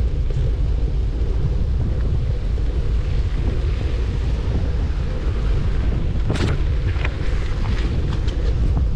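Steady low wind noise buffeting a GoPro's microphone as it rides on a moving bicycle, with a few sharp clicks about six and a half and seven seconds in.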